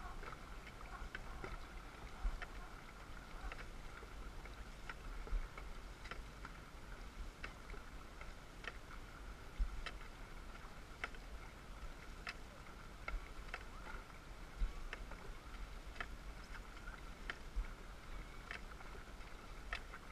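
Dragon boat paddles stroking through the water in a steady rhythm, a sharp tick at each catch about every second and a quarter. Underneath runs a steady hiss of moving water and a low wind rumble on the microphone.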